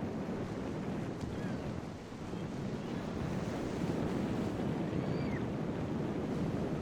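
Wind buffeting the microphone over the steady wash of waves and the drone of boat motors.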